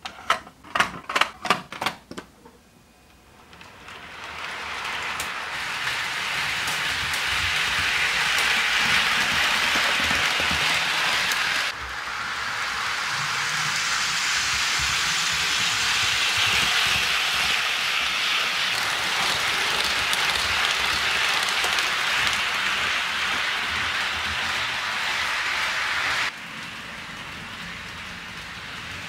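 A quick run of sharp clicks as plastic HO scale shipping containers are set onto a model well car. Then an HO scale model train runs along its track with a steady rushing rattle of wheels on rails, building up over a couple of seconds, and changes level abruptly twice.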